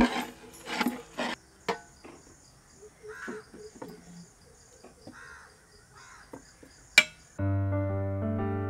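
A metal serving scoop knocks and scrapes against cooking pots as biryani is dished out, with a steady high insect chirping and a bird calling a few times behind it. Piano music comes in near the end.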